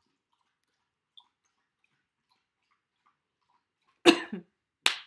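Near silence for about four seconds, then a short loud burst of a girl's voice, and a second brief sharp burst just before the end.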